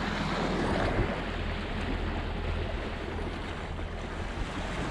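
Wind blowing across the microphone and water rushing along the hull of a sailboat under sail: a steady rushing noise with a low rumble.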